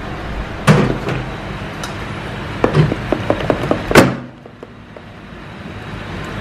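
A knock just before a second in, then a metal spoon clinking against a small bowl as gravy is stirred, ending in a louder knock about four seconds in.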